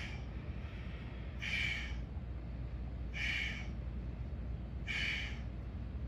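A person breathing hard in time with a flowing yoga movement: short, forceful breaths, one about every second and a half, four in a row, over a faint low hum.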